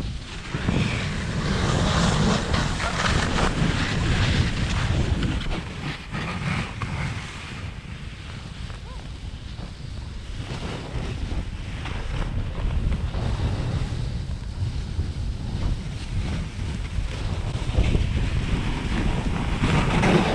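Wind buffeting the microphone while moving over snow: a loud, rushing noise that eases off in the middle and builds again near the end.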